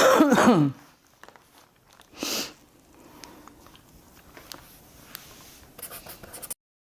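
A voice trailing off in a falling tone, then quiet room tone with a short hiss about two seconds in and faint scattered clicks. The sound cuts off abruptly to dead silence near the end.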